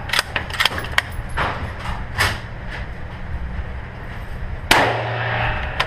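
Scoped Remington 700 bolt-action rifle at an indoor range: sharp metallic clicks and clacks in the first couple of seconds as the bolt is worked up, back, forward and down to chamber the next round, then one loud rifle shot about 4.7 seconds in that echoes for about a second in the range.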